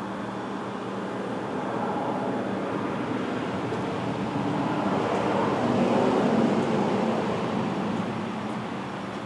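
Predator 670 V-twin engine running warm, its speed brought up slowly by hand over several seconds and then let back down toward idle near the end. This is a throttle-response check while the stock carburetor is being tuned.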